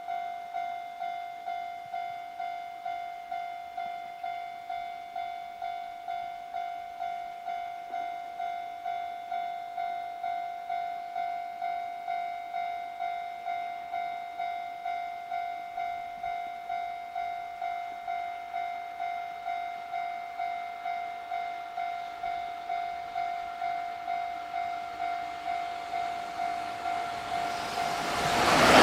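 Japanese level-crossing warning bell ringing steadily, nearly two rings a second, each ring one bright tone that fades away. Near the end the noise of an approaching freight train rises quickly under it.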